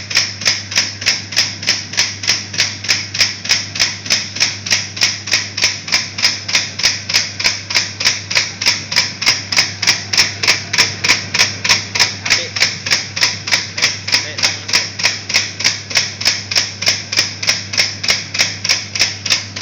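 Pentol (meatball) forming machine running: sharp, regular clicks about three a second over a steady low motor hum.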